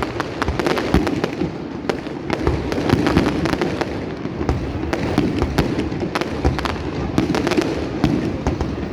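Fireworks display going off: a rapid, irregular string of sharp bangs and crackles, several a second, over a steady background din.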